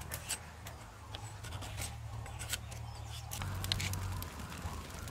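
Sickle blade shaving a thin wooden stick into a skewer: a run of short scraping clicks. About three and a half seconds in, the crackle of a small fire of dry leaves takes over.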